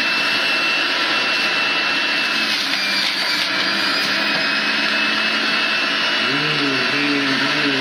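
Centrifugal juicer running at high speed, its motor giving a steady loud whir with a thin high whine as greens are pushed down the feed chute onto the spinning cutting disc.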